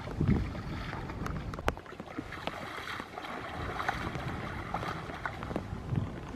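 Water sloshing and splashing, with low thuds near the start and near the end and a few sharp clicks in between.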